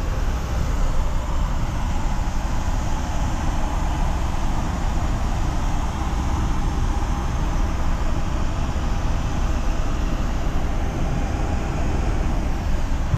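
Steady cabin noise of a Boeing 737 MAX 8 in flight: a constant low rumble and rush of airflow and engines through the fuselage.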